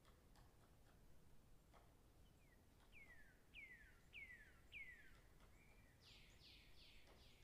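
Faint bird song: a row of about five clear whistles, each sliding downward, then a quicker run of falling notes near the end.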